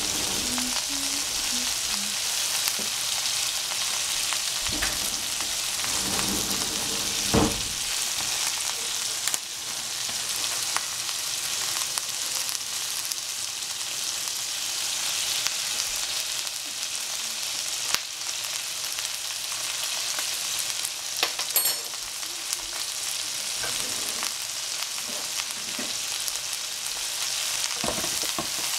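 Shredded cabbage and pork frying in oil in a frying pan: a steady, high sizzle, broken by a few brief clicks.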